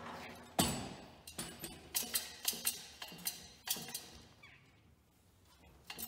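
Manual pallet jack clanking and rattling as it is pulled with a loaded wooden pallet over a concrete floor. There is a sharp clank about half a second in, then a run of quick clinks and knocks for about three seconds, and it goes quieter toward the end.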